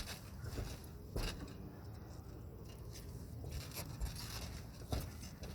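A few scattered knocks and scrapes of cement roof tiles, about three sharp ones, over a steady low rumble.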